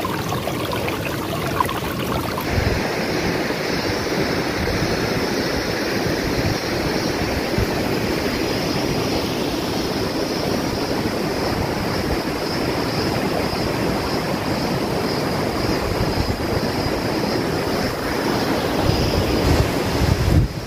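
Steady rushing noise from a geothermal field's steaming fumaroles and hot-spring water, with low wind gusts buffeting the microphone. A high, even hiss comes in about two and a half seconds in and holds.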